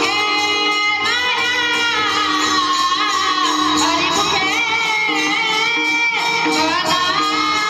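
Marathi Varkari devotional singing: a voice with sliding, ornamented pitch over held instrumental tones and percussion.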